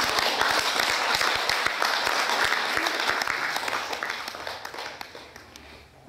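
Audience applauding, a dense patter of many hands clapping that dies away over the last couple of seconds.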